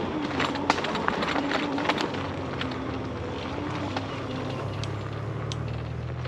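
E-bike riding along a rough dirt trail: a motor whine that wavers in pitch and fades out a little past halfway, over a steady rumble of the tyres, with frequent clicks and rattles from the ground and the bike.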